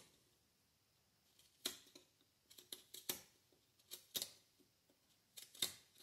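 Pocket knife blade paring thin cuts across the grain on the end of a softwood stick: a string of short, sharp slicing strokes, some in quick pairs, about a second apart.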